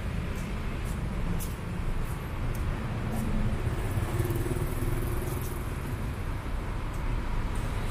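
City street traffic: a steady low rumble of cars and other motor vehicles running and passing, with an engine hum swelling briefly around the middle.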